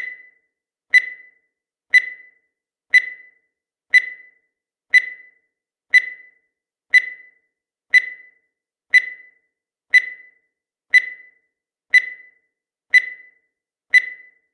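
Countdown timer sound effect: a short, high-pitched tick sounding exactly once a second, fifteen in all, with silence between.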